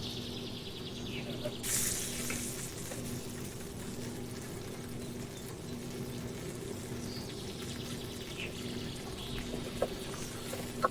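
Food sizzling on a barbecue: a steady frying hiss with a louder burst of hiss about two seconds in, and a couple of light clicks near the end.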